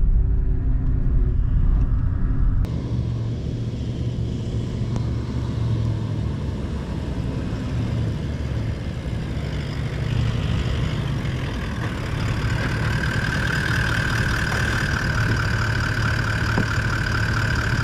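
A four-wheel drive's engine running, heard inside the cabin at first; a few seconds in it switches to the vehicle heard from outside as it drives across sand, a low engine hum under a steady hiss. From about twelve seconds in, a steady high whine sits over the engine.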